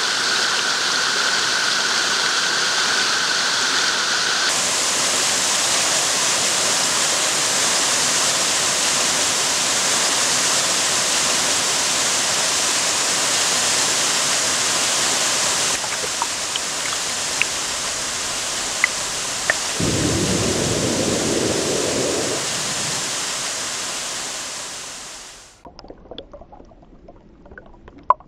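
Waterfall rushing: a steady, loud wash of falling water that changes abruptly twice, then fades out about 25 seconds in, leaving only a few faint clicks.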